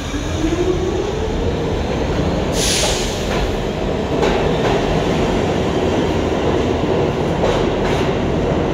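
Pullman-Standard R46 subway train pulling out of the station: a motor whine rises in pitch over the first second and then holds steady over the rumble of the cars. A burst of hiss comes about two and a half seconds in, and the wheels click sharply over rail joints several times.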